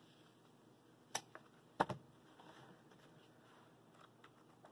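Paper craft pads handled on a table: a few light clicks and taps, about a second in and again just under two seconds in, with faint rustling as the sheets are flipped.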